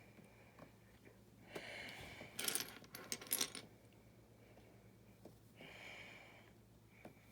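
Small plastic building-brick pieces clattering and clicking against each other as they are sifted through by hand, in a few short bursts near the middle.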